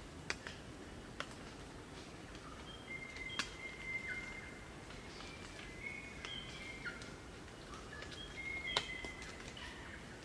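A group of crimson rosellas singing: clear, drawn-out whistled notes, some stepping down in pitch and overlapping at different pitches, with several sharp short clicks between them.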